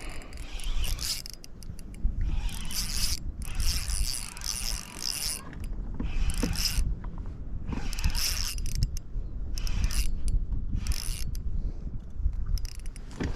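Fishing reel being cranked in short spells of a second or two, with pauses between them: the winding noise of the reel's gears turning as a lure is retrieved.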